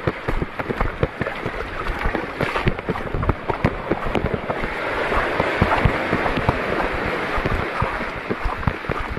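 Wading footsteps splashing through shallow seawater, dense and irregular, over a steady rush of water noise that swells in the middle.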